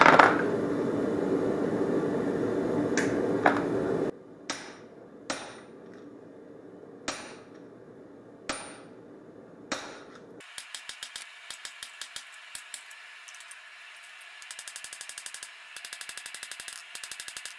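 Hammer blows on the old chisel's steel at the forge as it is flattened: a loud steady rushing noise with blows at first, then single ringing strikes about one a second. About ten seconds in the steady noise stops and short runs of rapid clicking follow.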